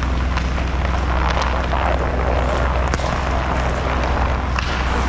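Roller hockey play on an indoor rink: a steady low hum under an even rushing noise, with a few short, sharp clacks of sticks and puck scattered through it.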